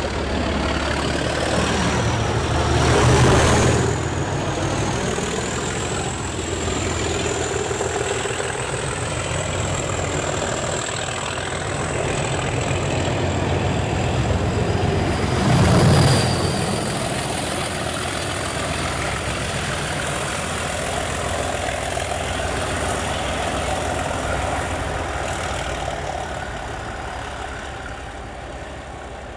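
Class 37 diesel locomotive's English Electric V12 engine working hard as it hauls a test train past, with a high whistling note that rises over the first few seconds and then wavers. The engine and the rush of the train swell about three and sixteen seconds in, then the sound fades as the train draws away.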